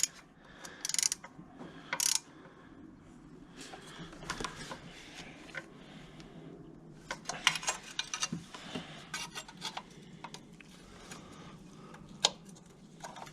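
Socket ratchet clicking as screws are tightened by hand, with sharp clicks and tool clatter; a quick run of ratchet clicks comes about two-thirds of the way through.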